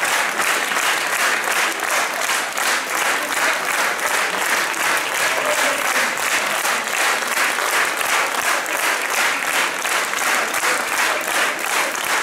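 Theatre audience applauding, the clapping fallen into a steady rhythm.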